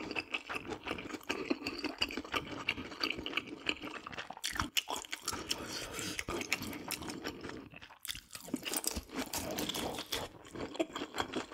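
A person chewing and crunching food close to the microphone, in irregular bites.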